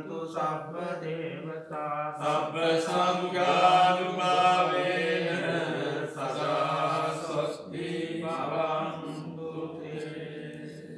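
Theravada Buddhist monks chanting Pali pirith together in a steady, droning recitation, the chant tapering off near the end.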